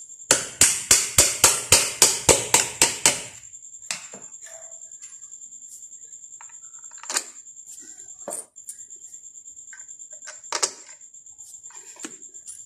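A rapid run of sharp clicks, about four a second for three seconds, then a few single knocks, from hands handling a water-purifier booster pump and its plastic pump head.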